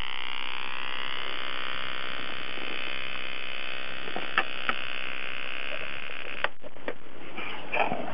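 Battery-powered homemade high-voltage generator (four AA cells, about 10,000 V) arcing across its electrode gap: a steady buzz, with a few sharp clicks in the second half.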